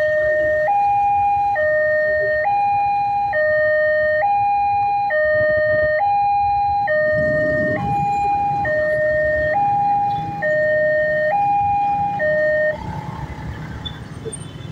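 Railway level-crossing warning alarm: an electronic two-tone signal alternating steadily between a lower and a higher tone, each held just under a second. It warns that the crossing is closed and cuts off abruptly near the end as the gate reopens, leaving the lower rumble of motorcycles moving off.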